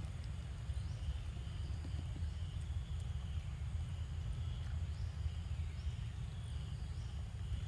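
Outdoor ambience: a steady low rumble with faint high chirps repeating every second or so.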